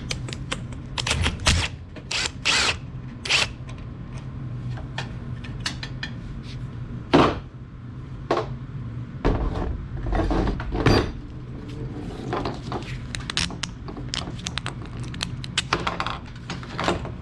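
Irregular metallic knocks, clicks and clanks as the broken extension spring and its mounting hardware are worked off a garage door by hand, with the sharpest knock about seven seconds in. A steady low hum runs underneath.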